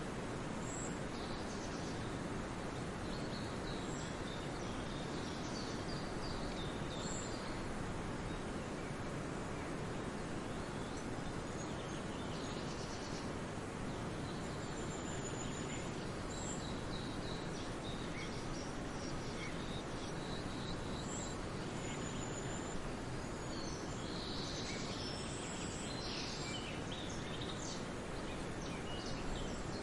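Several small songbirds chirping and singing in short, scattered phrases, busier near the end, over a steady, even rushing background noise.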